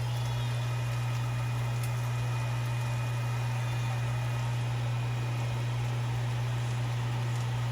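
A steady low hum with a faint hiss over it, holding level without change.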